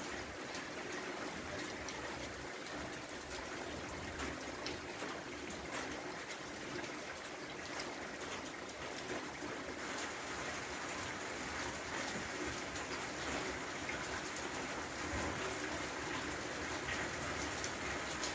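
Steady rain falling on standing water and wet stone: an even hiss with many scattered sharp drip ticks.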